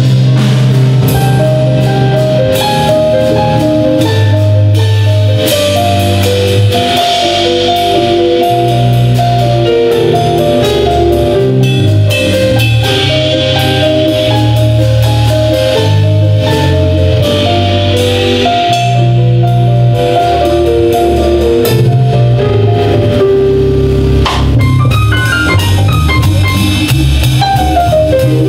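Live band playing an instrumental passage: an electric stage piano playing runs of short notes over bass guitar and drum kit.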